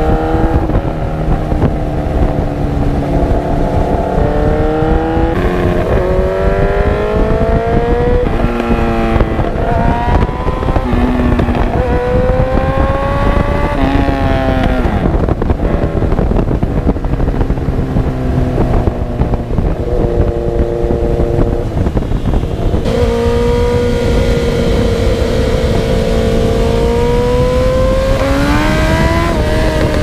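Motorcycle engine under way, the revs climbing and dropping back at each gear change several times, with a stretch of steady cruising in the middle and another climb near the end. A steady rush of wind on the microphone lies under it.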